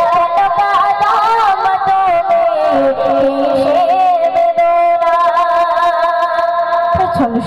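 A young girl singing a Bengali Islamic gojol into a microphone in a slow, mournful melody, with ornamented turns and a long held note in the second half.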